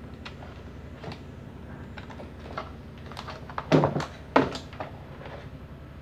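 Hard plastic parts of a pedestal fan clicking and knocking as it is reassembled: a few light clicks, then two loud knocks a little more than half a second apart past the middle. A steady low hum runs underneath.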